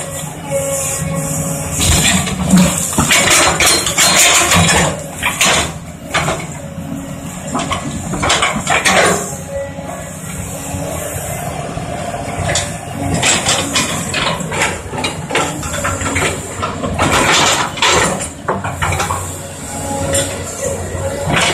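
Caterpillar 320D hydraulic excavator working: its diesel engine runs steadily under load while the steel bucket knocks and scrapes among broken concrete slabs, giving irregular clanks and grinding clatter.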